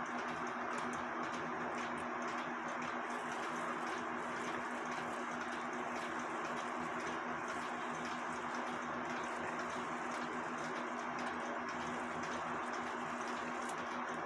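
Cuckoo clock movement ticking faintly over a steady background hum with a low, constant tone.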